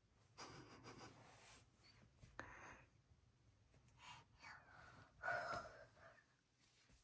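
A toddler's soft breathy sighs and small vocal sounds, with a brief louder vocal sound about five seconds in.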